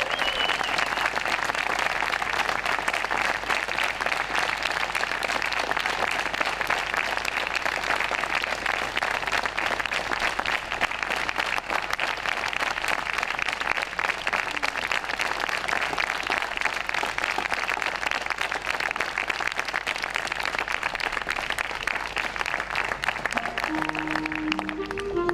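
Audience applauding steadily, a dense even patter of many hands clapping. Music starts in just before the end.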